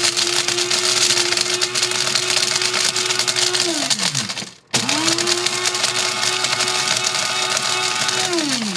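Electric coffee grinder grinding popping corn kernels: the motor runs at a steady pitch with a dense grinding noise. It winds down and stops about four seconds in, starts again almost at once, and winds down again near the end.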